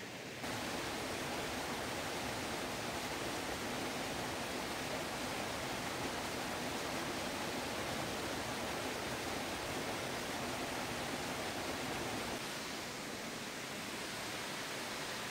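Small forest waterfall and stream, water rushing steadily. It rises abruptly about half a second in and drops a little near the end.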